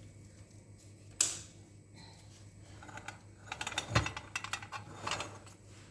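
Hard objects being handled: a single sharp click, then a couple of seconds of quick rattling clicks with a dull thud in the middle.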